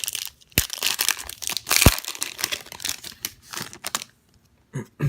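A trading-card pack's wrapper being torn open and crinkled, with a couple of sharp snaps, for about four seconds.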